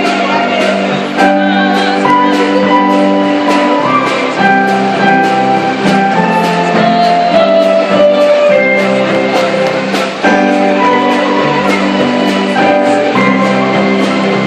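Live band music: an electronic keyboard playing sustained chords, with a drum kit and an electric guitar.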